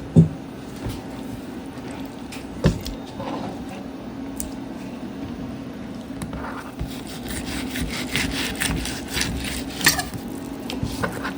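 A kitchen knife cutting and scraping on a cutting board while raw salmon is cubed and trimmed, with scattered light taps and knocks. A steady low hum runs underneath.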